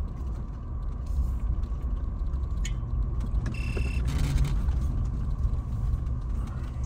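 Low, steady rumble of a Toyota 4Runner TRD Pro rolling slowly over a rough dirt trail, heard from inside the cabin. A few light clicks and rattles come through, with a brief high tone about three and a half seconds in.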